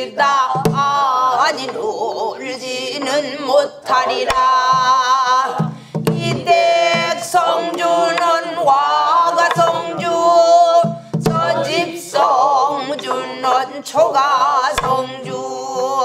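A woman sings a Korean Namdo folk song in the traditional throaty style, with wide wavering vibrato and pitch bends broken by breaths. She accompanies herself with a few sharp strokes of a stick on a buk barrel drum, spaced several seconds apart.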